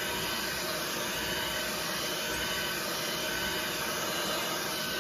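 Hand-held hair dryer running steadily, a rush of air with a faint high whine, drying a wet watercolour wash on paper.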